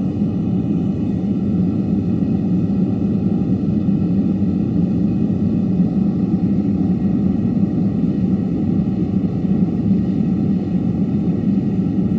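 Metal-melting furnace burner running steadily: a loud, even, low rumble with no change in pitch or level.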